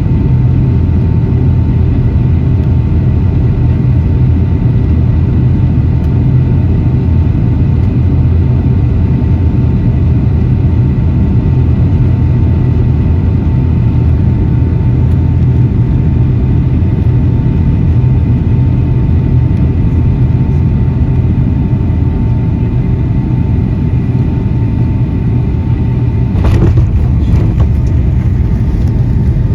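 Boeing 757 cabin noise on final approach, heard from inside the cabin: a loud, steady rumble of engines and airflow with a steady whine on top. Near the end comes a brief burst of knocks and rattles.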